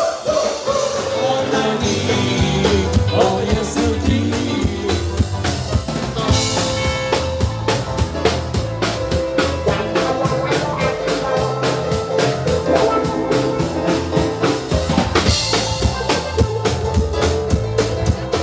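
Live band music: a drum kit keeping a steady, driving beat under held vocal and instrumental notes, with singing.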